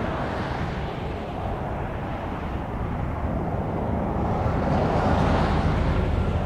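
Jet airliner engines rumbling, swelling gradually to a peak about five seconds in.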